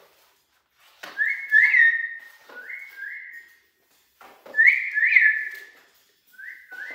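Yellow-naped Amazon parrot whistling a repeated two-note whistle, four times over. Each note slides up and then holds.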